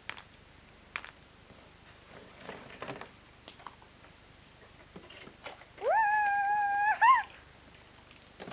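A few light clicks of a plastic surprise egg being handled and worked open, then a child's voice holding one high note for about a second and a half, sliding up at the start and wavering at the end.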